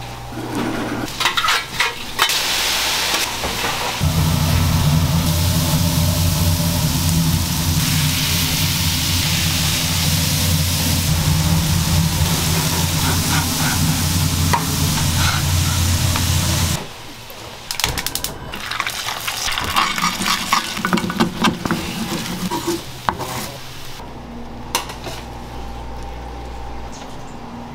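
Beef patties and buns sizzling on a flat-top griddle, with metal spatula scrapes and clicks. A loud steady sizzle over a low hum starts about four seconds in and cuts off suddenly partway through, after which come quieter scattered scrapes and clicks.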